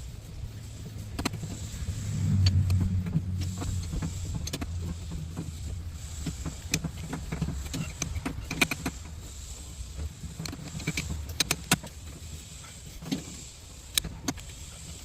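Mini excavator's small engine running with a low hum that swells about two seconds in, with scattered sharp metallic clicks and clanks.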